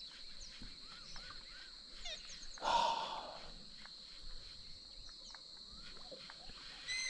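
Wild birds calling in short whistled notes over a steady high-pitched drone, with one short, louder noisy burst about three seconds in.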